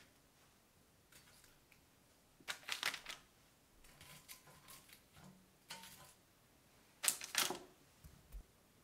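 Metal tongs setting crispy fried chicken pieces down on crinkly kraft paper: two quiet bursts of paper rustle and crackle, the first about two and a half seconds in and the second about seven seconds in, with a few faint ticks between them.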